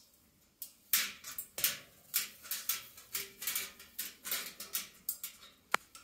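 Amazon parrot moving about with its wings spread: a run of short rustling, breathy bursts, two or three a second, then one sharp click near the end.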